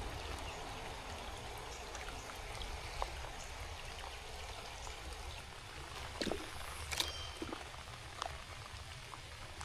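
Steady rain pattering down, with a few short sharp knocks or splashes, the clearest about six and seven seconds in.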